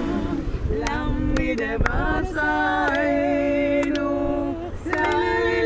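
Music: sung voice holding long, wavering notes, with sharp percussive taps now and then.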